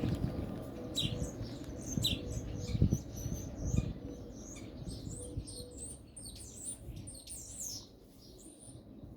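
Small birds chirping repeatedly in quick, high calls, with a few low knocks in the first half.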